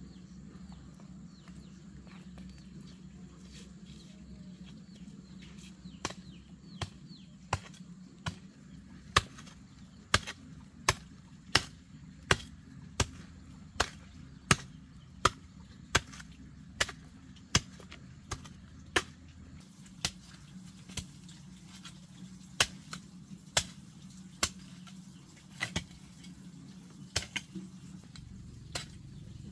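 A long-handled hoe chopping into garden soil in steady, evenly spaced strokes, about one and a half a second. The strokes start some six seconds in and grow sparser toward the end, over a steady low hum.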